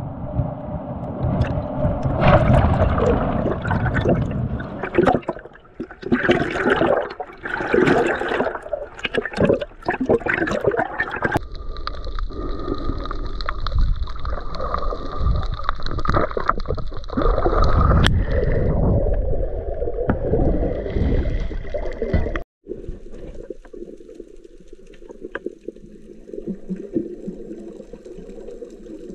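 Waves breaking and washing over a pebble shore, then water sloshing and gurgling around a snorkeler at the surface. About three-quarters of the way through the sound cuts out briefly and gives way to a quieter, muffled underwater hush.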